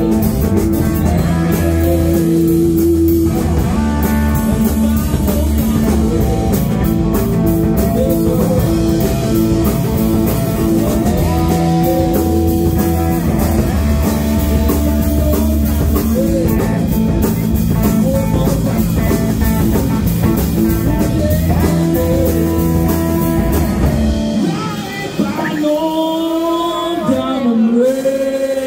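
Live blues-rock band playing, with two electric guitars and a drum kit. About 24 seconds in, the drums and low end drop out, leaving held electric guitar notes that bend in pitch and ring as the song winds down.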